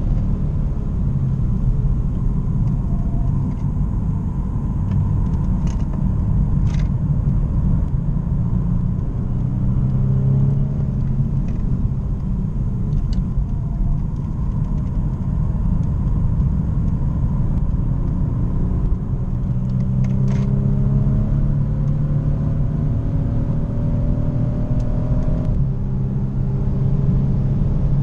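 BMW saloon's engine and road noise heard inside the cabin while it is driven on track, the engine note climbing several times as it accelerates. Near the end a long climb breaks off with a sudden drop in pitch as the automatic gearbox shifts up.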